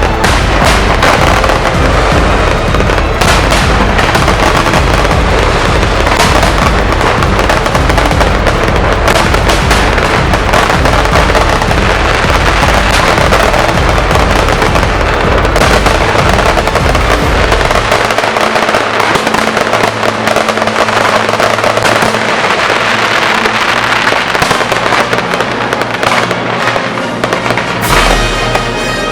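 Aerial fireworks going off in a dense, continuous barrage of crackles and bangs. The deep booms drop away about two-thirds of the way through, leaving mostly crackling.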